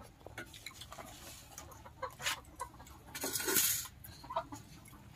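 Chickens clucking, with scattered small clicks and one louder, noisy burst a little past three seconds in.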